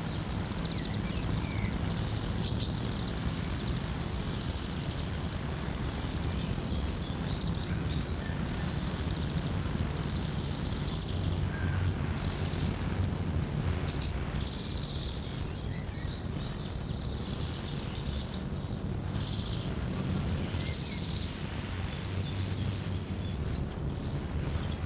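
Outdoor ambience: a steady low rumble with birds chirping, the chirps coming often from about six seconds in.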